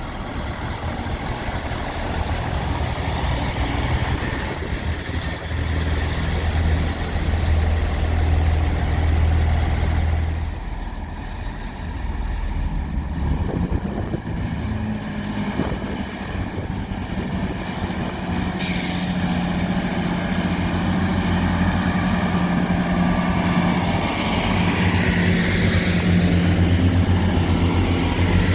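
Diesel engine of a train or rail machine running, a steady low hum throughout. A rushing hiss starts suddenly about two-thirds of the way through.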